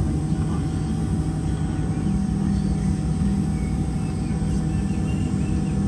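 Steady air-conditioning and ventilation hum inside a Boeing 717's passenger cabin at the gate, before engine start: a constant low hum with a couple of steady tones in it.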